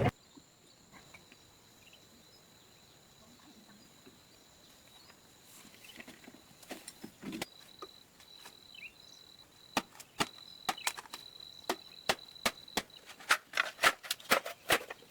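A series of sharp knocks or taps, sparse at first and coming quickly and louder over the last few seconds, over a faint steady high-pitched tone.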